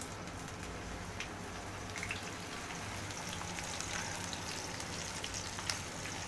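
Cut okra being tipped into hot mustard oil in a kadai, the oil sizzling and crackling steadily with a few sharp pops; the crackle grows brighter about halfway through as more okra goes in.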